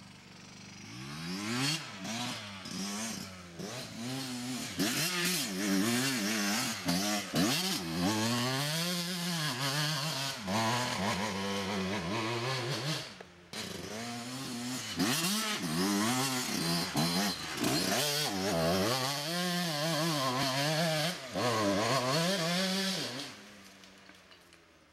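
2003 Kawasaki KX125's single-cylinder two-stroke engine revving hard up and down over and over as the dirt bike climbs a rough hill. It drops out briefly about halfway through, then fades away near the end.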